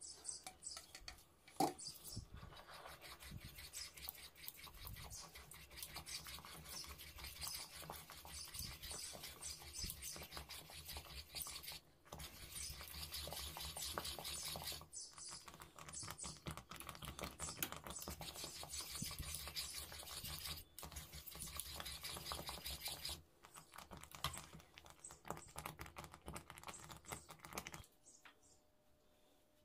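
Spring whisk scraping and clicking rapidly against the inside of a stainless steel pot while milk is whisked, with a few brief pauses, stopping shortly before the end.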